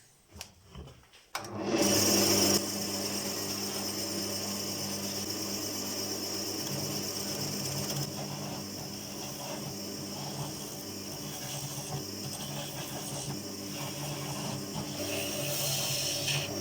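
A few light clicks, then a wood lathe's electric motor starts about a second and a half in and runs steadily, with a hiss above the motor hum as the maple workpiece spins.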